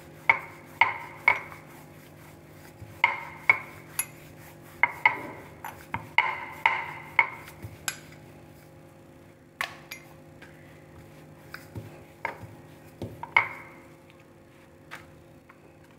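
Rolling pin working wheat dough into a paratha on a round rolling board: sharp knocks with a short ring at the strokes, in quick runs of two or three, thinning out near the end.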